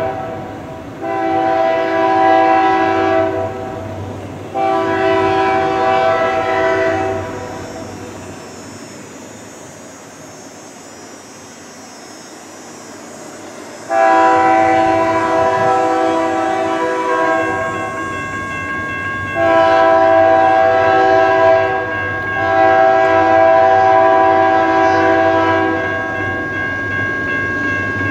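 The diesel locomotive's chime air horn sounds five long blasts: two close together, then a lull of several seconds, then three more as the train nears. A low diesel rumble runs underneath, and a steady high tone comes in during the second half.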